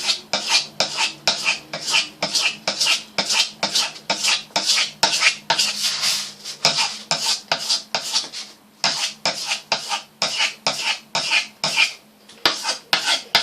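Steel knife edge scraped over dry 240-grit wet-and-dry sandpaper in quick circular, flicking strokes: a rasping scrape about three times a second, with a brief pause about nine seconds in.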